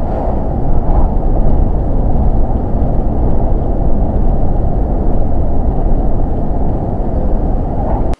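Steady road and engine noise of a vehicle driving on the expressway exit, a dense low rumble with little in the higher range, cutting off abruptly near the end.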